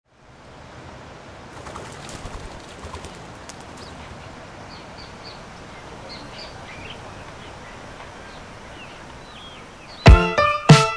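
Outdoor ambience fading in, with birds chirping faintly over a steady background hiss. About ten seconds in, loud music with piano chords and a strong beat starts abruptly.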